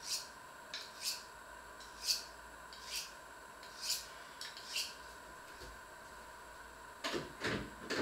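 Kitchen knife being drawn along a honing steel: a series of short, sharp metallic scraping strokes, roughly one a second, then a few dull knocks near the end.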